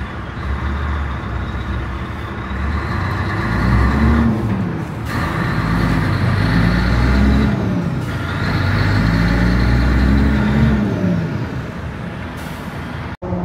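Heavy truck's engine heard from inside the cab while driving, its pitch rising as it pulls through a gear and dropping back at each shift, about three times.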